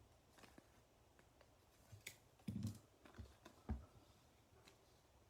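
Faint handling of trading cards: scattered light clicks and a few soft taps as cards are shuffled and set down on a table, with a couple of duller knocks about two and a half and three and a half seconds in.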